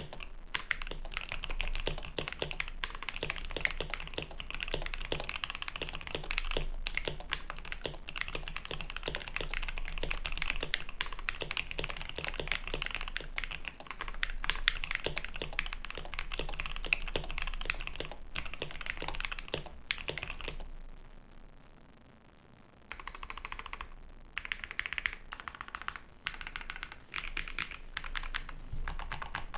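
Fast typing on two 65% mechanical keyboards at once, a KBD67 Lite and a D65 with linear switches: a dense stream of key clacks. It stops for a couple of seconds about two-thirds of the way through, then picks up again.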